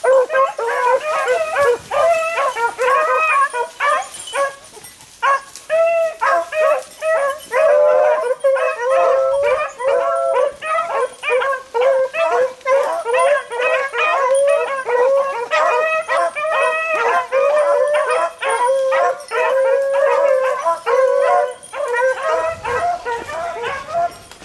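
A pack of beagles baying on a rabbit's trail, several voices overlapping almost without a break. The chorus lulls briefly just before five seconds in and thins out near the end.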